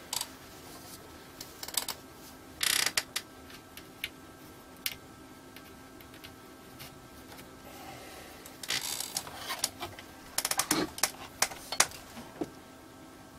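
Multimeter test leads and plugs being handled and connected: scattered clicks, taps and short rustling scrapes, coming in a few clusters, with a faint steady hum underneath.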